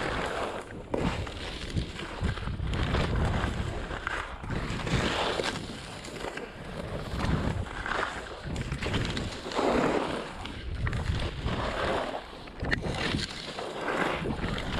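Skis carving and scraping over packed snow, swelling and easing with each turn every second or two, with wind noise on the microphone.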